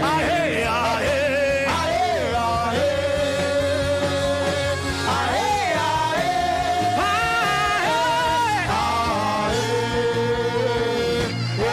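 Worship music: a single voice singing a slow line of gliding and long held notes with no English words, over a steady sustained instrumental backing.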